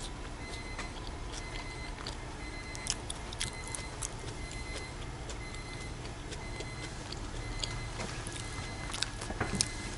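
Street ambience: a steady low rumble of distant traffic with scattered sharp clicks and faint short high beeps that come and go.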